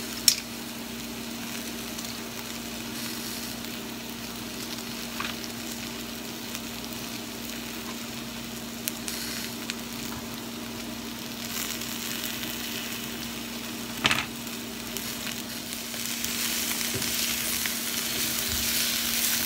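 Sliced zucchini and yellow squash sizzling in hot oil in a skillet, a steady frying hiss. There is a sharp click just after the start and another about 14 seconds in. Near the end a spatula stirs the vegetables and the sizzle grows louder.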